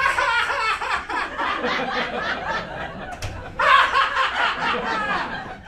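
Audience laughing together, with a dip about three seconds in and a fresh, louder wave of laughter just before four seconds.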